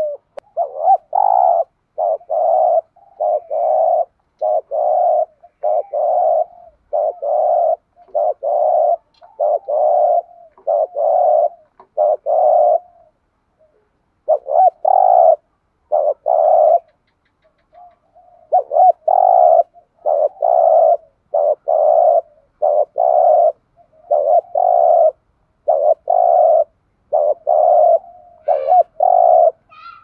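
Spotted dove cooing in a quick series of short, repeated coos, the fast 'thúc gù' style of cooing, with a brief break about halfway through.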